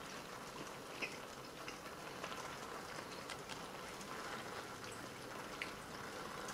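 Rain coming down, together with a tinned ration entrée heating over a solid-fuel tablet stove: a faint steady hiss with a few scattered light ticks.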